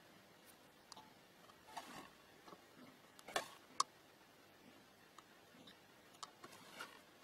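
Faint, scattered small clicks and taps of tools and small parts being handled on a workbench during soldering work on an effect pedal's circuit board, with two sharper clicks a little past the middle.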